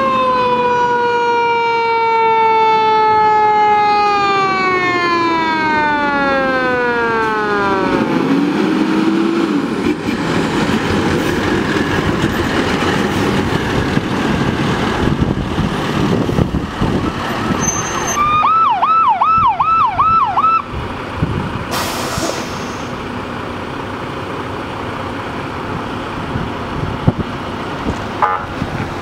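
Emergency vehicles passing with sirens: a siren winds down, falling steadily in pitch over the first eight seconds, over the sound of heavy engines going by. About eighteen seconds in, a siren gives a short burst of rapid yelping, followed by a brief hiss.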